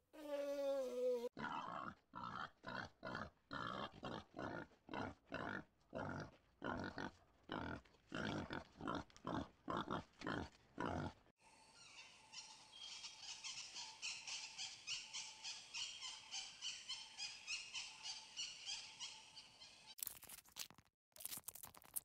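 A run of animal calls. An elephant's falling, pitched call ends about a second in. Then come short harsh calls repeated at about two or three a second for some ten seconds. After that, a rapid high-pitched chattering goes with helmeted guineafowl.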